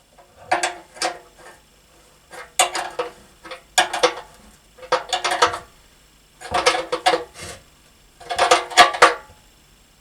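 A spanner tightening the nut on a float switch fitted through a steel petrol tank: six short bursts of metal clicking and clinking with a little ringing, about a second and a half apart, as the nut is worked round.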